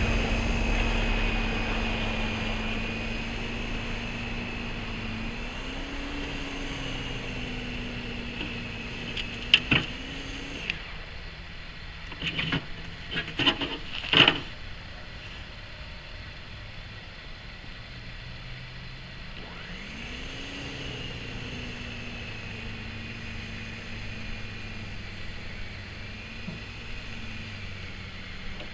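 Corded electric snow thrower's motor running with a steady whine that wavers in pitch as it throws snow, stopping about eleven seconds in. A few sharp knocks follow, then the motor starts again about twenty seconds in, its pitch rising as it spins up.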